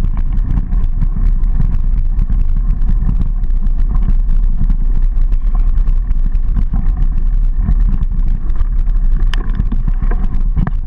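Mountain bike ridden over rough dirt singletrack, heard through a bike-mounted or helmet-mounted action camera: steady wind-and-vibration rumble on the microphone with constant small rattles and clicks from the bike over the bumpy trail, and a couple of sharper knocks near the end.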